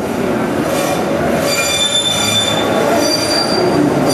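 Vintage IRT Lo-V subway train pulling into the platform: a steady rumble, with a high-pitched metallic squeal of several tones setting in about a second and a half in and carrying on.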